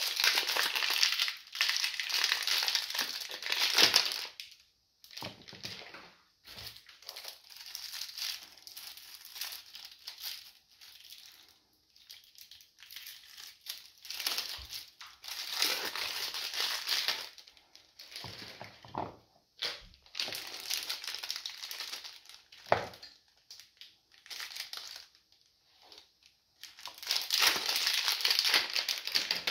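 Clear plastic wrapping crinkling as it is peeled off bars of soap, in bursts of a few seconds with quieter stretches between. A couple of sharp knocks come in the middle.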